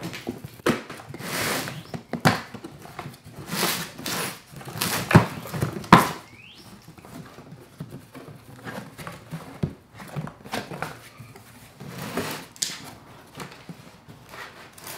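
A knife slicing through the tape of a cardboard box in a series of short scratchy strokes, with the cardboard scraping and crinkling. The strokes are louder and closer together in the first six seconds, then give way to quieter rustling as the box flaps are opened near the end.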